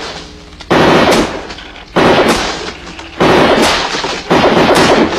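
Four short bursts of rapid gunfire, about a second apart, each lasting around half a second before fading.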